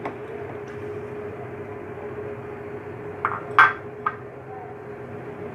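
Three quick clinks of a glass bowl knocking against a steel cooking pot, the middle one loudest and ringing, a little past the middle, over a steady background hum.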